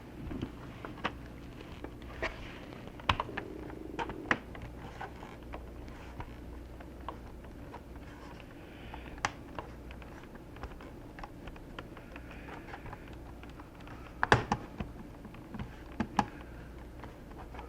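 Irregular plastic clicks and taps from an Asus X54c laptop's plastic case being handled and pried apart, with a cluster of sharper clicks near the end.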